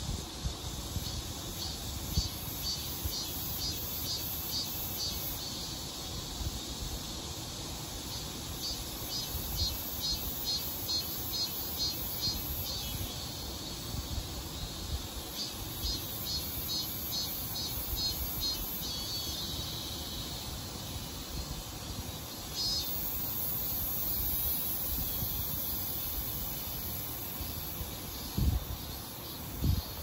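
Cicadas singing: a rapidly pulsing, repeated high call through most of the stretch, giving way to a higher, steadier buzz a little over two-thirds in. A low, uneven rumble of wind on the microphone runs underneath, with a few heavier gusts near the end.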